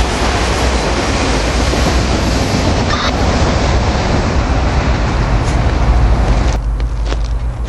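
Freight train's autorack cars rolling past on the rails, a loud steady rumble of wheels and car bodies as the rear of the train clears. About six and a half seconds in, the noise drops off abruptly, leaving a low rumble and a few faint clicks.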